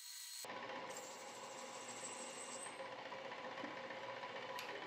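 Milling-machine spindle running steadily as a drill bores a centre hole into a large metal disc, with a single sharp click near the end.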